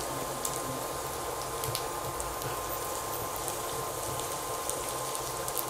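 Chopped garlic sizzling steadily in hot oil in a nonstick pan as it fries toward golden, with scattered small pops and crackles while it is stirred with a silicone spatula. A faint steady tone runs underneath.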